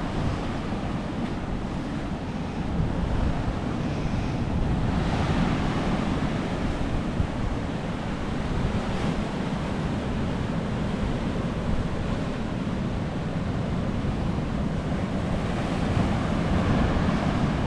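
Indian Ocean surf washing against a rocky shore in a steady rush, with wind buffeting the microphone.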